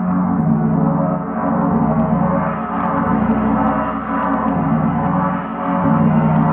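A spinning Rotogong ringing with a dense, deep, many-toned drone that swells and fades in a slow regular pulse about every second and a half as the gong turns.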